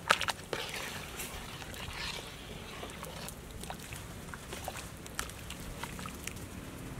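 Metal ladle stirring a pot of boiling broth, clinking against the pot a few times just after the start, then scattered light taps over the steady bubbling of the boil.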